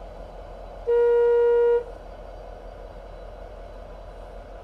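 A vehicle horn sounds one steady honk of just under a second, about a second in, over a low steady hum.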